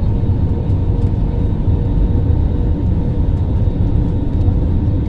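Steady low rumble of an airliner's engines and airflow heard inside the passenger cabin, with a faint steady hum over it.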